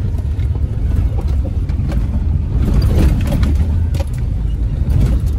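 Vehicle driving on a rough dirt road, heard from inside the cab: a steady low rumble of engine and tyres, with scattered rattles and knocks from the bumpy track.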